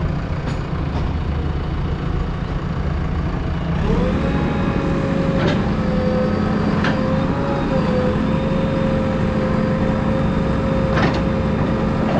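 JCB 3DX backhoe loader's diesel engine running, revving up about four seconds in and holding a higher steady pitch with a whine as it works, with a few sharp clanks.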